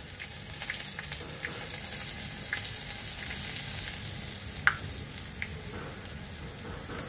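Minced garlic sizzling in hot oil in a wok, fried to dark brown, a steady hiss with scattered crackles and one sharper pop a little past halfway.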